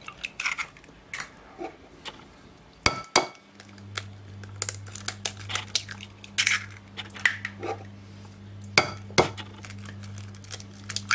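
Eggs being cracked on the rim of a glass bowl: sharp taps of eggshell on glass, the loudest in two pairs about three and nine seconds in, with small crackles as the shells are pulled apart. A low steady hum comes in about three seconds in.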